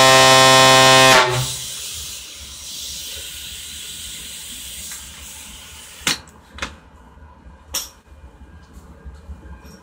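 Homemade PVC fog horn blown with compressed air at about 100 psi, sounding one low, steady note rich in overtones that cuts off about a second in. A hiss of escaping air fades after it, and a few sharp clicks come later.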